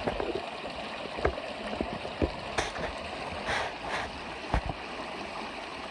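Creek water running steadily over rocks, with a few scattered knocks and splashes.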